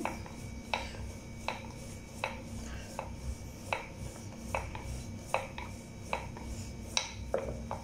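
Wooden rolling pin rolling out chapati dough on a plastic cutting board, with a light click at each back-and-forth stroke, about one every three-quarters of a second.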